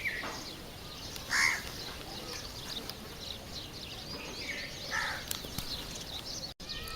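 Wild birds calling: a steady chatter of small high chirps, broken by three short, harsher calls. The loudest of these comes about a second and a half in.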